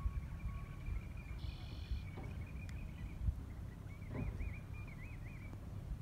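Wind rumbling on the microphone outdoors, with a faint thin high tone that wavers up and down a few times past the middle.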